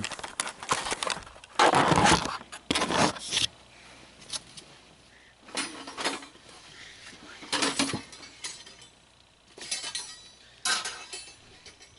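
Clinking and clattering of hard parts being handled while an animatronic prop is assembled: a dense run of knocks over the first few seconds, then scattered short clatters.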